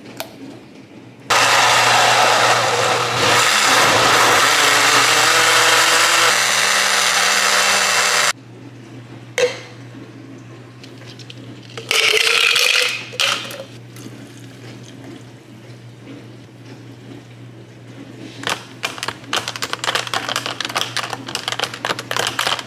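Countertop blender running for about seven seconds, blending yogurt, strawberries, spinach, kale and oat milk into a smoothie, its motor pitch shifting in steps as the mix loosens. A second, roughly one-second burst follows about twelve seconds in, and light clicking near the end, over a low steady hum.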